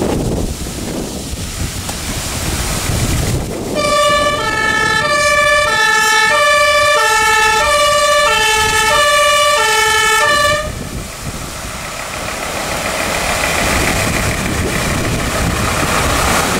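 Fire engine's two-tone siren, alternating between a low and a high note about once a second for some seven seconds starting a few seconds in. Wind buffeting the microphone and the rumble of passing vehicle engines can be heard before and after.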